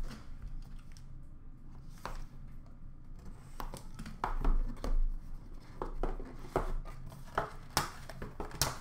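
Hands opening a Leaf Superlative hockey card box: scattered taps, scrapes and light crinkles of wrap and cardboard as the seal is cut and the lid is lifted off, with the clicks coming more often from about halfway through.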